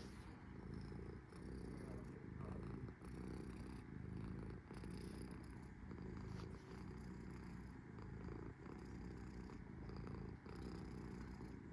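Long-haired domestic cat purring steadily, the purr dipping briefly at each breath about every one and a half to two seconds.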